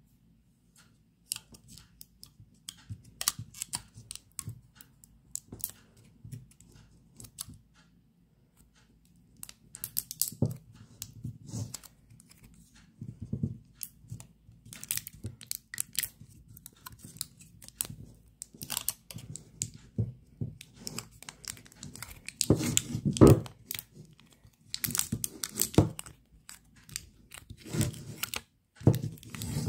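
Clear plastic film around an ice cream pint's lid being picked at, torn and peeled off: irregular crinkling and crackling, growing busier and loudest about two-thirds of the way through.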